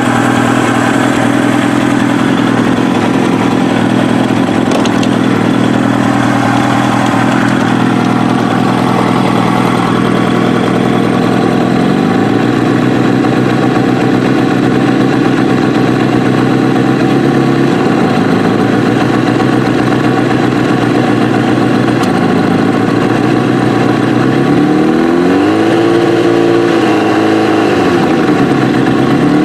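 Kawasaki ZX-7R's inline-four engine on Keihin FCR carburettors running at steady throttle, held at one speed and then another. Its revs step up about halfway through and drop back, then rise to about 3,700 rpm and fall again near the end, and climb once more at the very end.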